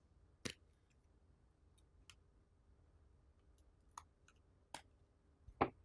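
Plastic prying tool clicking and snapping against the iPhone 6s frame and screen as the screen is worked loose from its glue seal: about five scattered sharp clicks, the loudest near the end.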